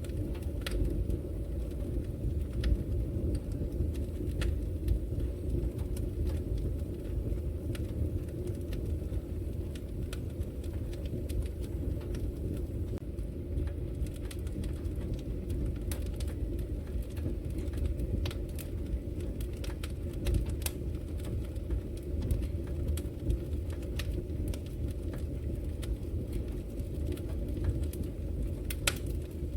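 Wood fire burning in a fireplace: irregular sharp crackles and pops over a steady low rush of the burning logs.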